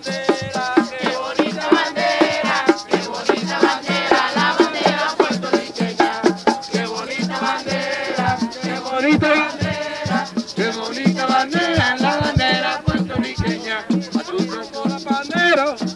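Live Puerto Rican plena: several panderos (hand frame drums) beaten in a quick, steady rhythm with a group singing over them.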